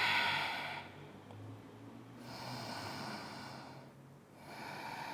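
A woman breathing deeply and audibly while holding a yoga pose: a loud breath at the start, then two more, about two and a half and four and a half seconds in.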